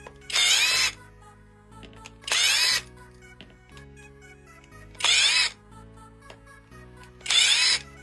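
A small power driver spinning in four short bursts of about half a second each, a couple of seconds apart, with a wavering whine, typical of backing out screws one at a time while opening a cordless drill's battery pack. Faint background music runs underneath.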